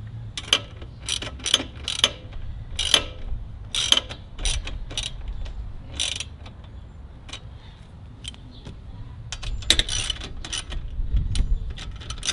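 Hand socket ratchet clicking in uneven runs as the bumper's 10 mm bolts are tightened into the ATV frame, with a quieter pause of a couple of seconds past the middle.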